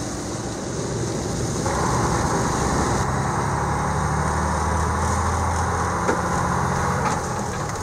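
Cab noise inside a 2007 toter home truck on the move: the engine's steady drone with tyre noise from the wet road. A steady low engine hum settles in about three seconds in and holds until near the end.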